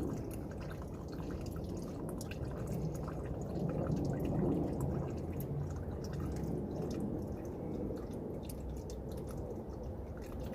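Hot used engine oil draining and dripping from the open drain hole of a Toyota Camry V6's oil pan into a catch pan, a steady run of liquid.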